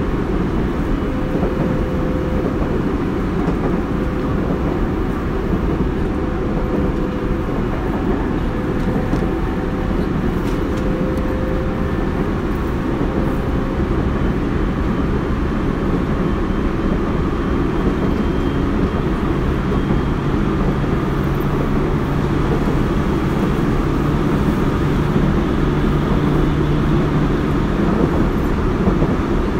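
Running sound inside a Tobu 30000 series electric motor car, cruising at speed between stations: steady wheel-on-rail rumble with the traction motors' hum. A low hum grows stronger from about twenty seconds in.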